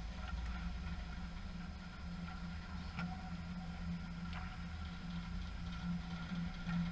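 Steady low mechanical hum, with two faint sharp clicks about three and four and a half seconds in.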